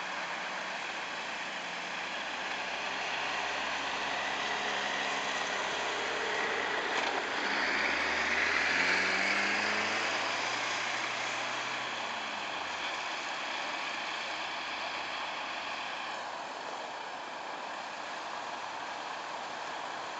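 A small car drives past through slush on a snow-covered road, loudest about eight to ten seconds in, its engine note dropping as it goes by. Under it is a steady hiss of tyres on wet snow and engines running in the distance.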